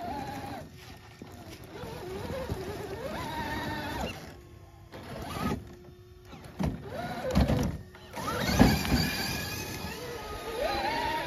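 Axial SCX6 Jeep 1/6-scale RC crawler's electric motor and gearbox whining, rising and falling in pitch with the throttle as it climbs over rocks and a log. Several knocks come from the chassis and wheels between about six and nine seconds in; the loudest is about eight and a half seconds in.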